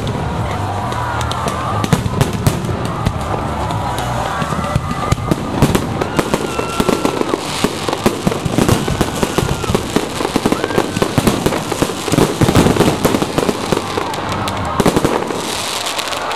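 Aerial fireworks bursting overhead: a continuous run of bangs and crackling, densest through the middle.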